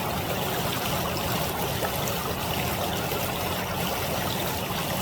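Steady flowing water of a small stream, an even rushing trickle without breaks.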